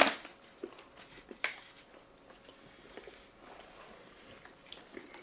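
Eating at close range: sharp clicks of a plastic fork against an aluminium foil takeout pan, the loudest right at the start and another about a second and a half in, with quieter chewing and small ticks in between.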